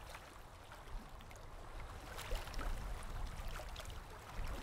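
Wind rumbling on a small action camera's microphone, with faint water lapping and trickling at the shoreline and scattered small ticks.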